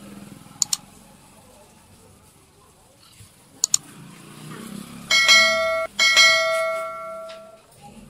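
Subscribe-button sound effect: a quick double mouse click, another double click about three seconds later, then two bell dings about a second apart that ring on and fade out.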